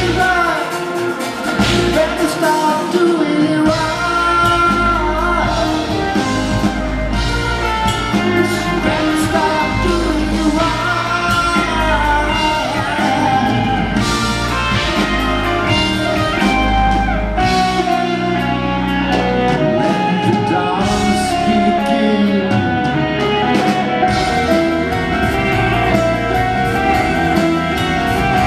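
Live progressive rock band playing loudly, with a lead vocal over guitar, bass, keyboards and drums.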